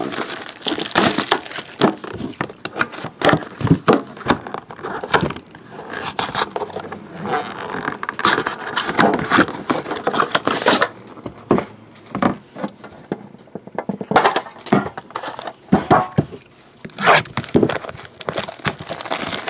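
Hands unwrapping and opening a sealed hockey card box: plastic wrap crinkling and tearing, with the box scraping and knocking, in quick irregular clicks and rustles.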